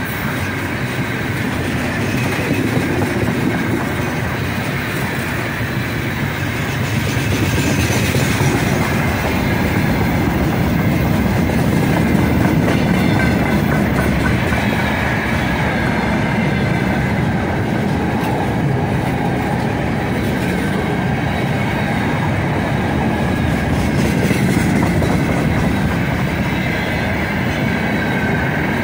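Freight train of open gondola wagons rolling past close by: a steady rumble of wheels on rail with clickety-clack over the joints, and a faint high wheel squeal held above it.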